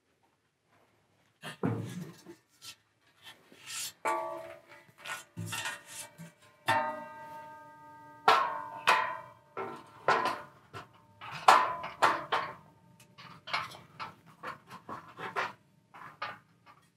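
Aluminum cantilever shelf clanking and clattering against the aluminum frame as it is lifted and set onto the arms. The knocks start about a second and a half in, and some leave a ringing metallic tone.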